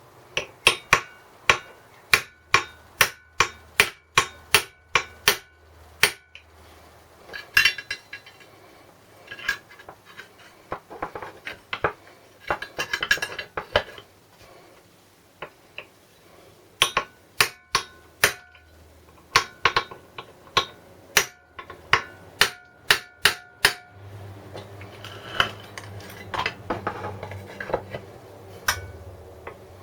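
Hammer tapping again and again on a stuck metal part of an old Briggs & Stratton small engine to drive it loose. The blows come in runs of about two a second with short pauses, and each one rings briefly like struck metal.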